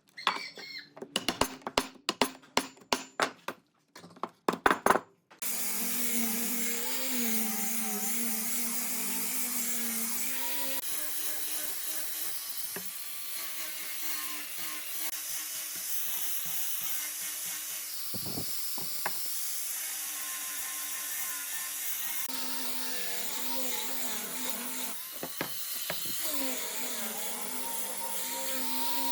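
A run of sharp knocks on wood, then a handheld electric power tool starts about five seconds in and runs steadily, its pitch shifting a little a couple of times as it works the wood.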